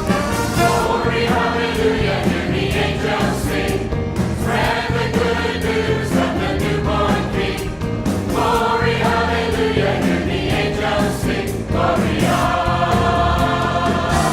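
Choir singing a gospel-style Christmas song with orchestra and band accompaniment and a steady beat.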